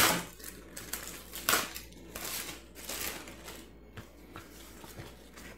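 Thin plastic wrapping crinkling and crackling as it is pulled off a paper instruction manual, with sharper crackles at the start and again about a second and a half in.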